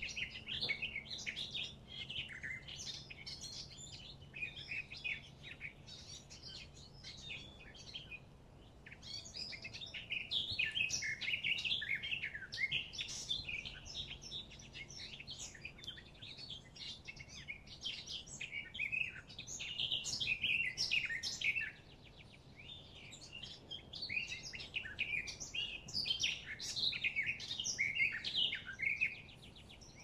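A chorus of songbirds singing and chirping, with many overlapping calls and trills. There is a brief lull a little past the middle.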